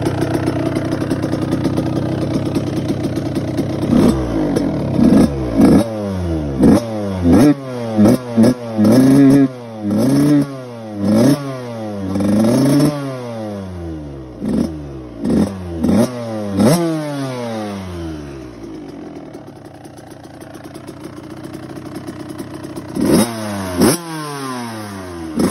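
Stock Suzuki RM85's 85cc single-cylinder two-stroke engine idling, then revved in a quick run of a dozen or more throttle blips, each rising and falling in pitch. It drops back to a steady idle, then is blipped twice more near the end.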